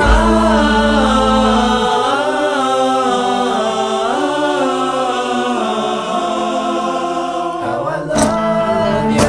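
Background song with layered, sustained sung vocals. The low bass drops out about two seconds in and comes back near the end.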